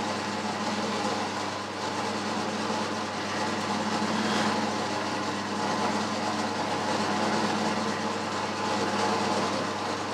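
Boxford metal lathe running with its spindle turning slowly, set at about 40 revolutions a minute: a steady motor hum with gear and belt whir.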